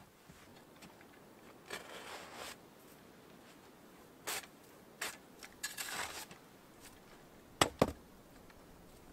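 Small hand shovel digging into packed snow in short, irregular scraping strokes, then two sharp knocks close together near the end, the loudest sounds.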